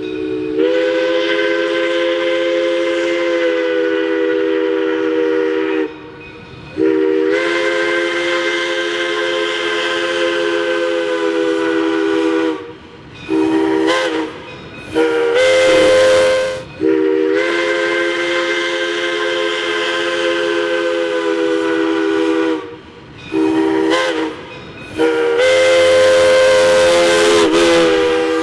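Steam whistle of 1920 Baldwin 0-6-0 locomotive No. 3 sounding a chord of several notes in a series of blasts: long ones of five or six seconds broken by shorter ones of a second or two.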